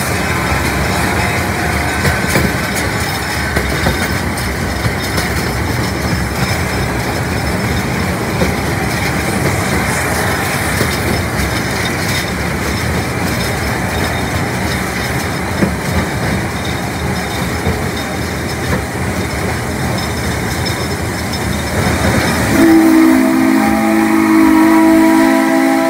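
Rumble and clatter of a ride train pulled by a Shay geared steam locomotive, heard from an open car. About 23 seconds in the locomotive's steam whistle starts a long, steady blast of several tones that runs to the end and is the loudest sound.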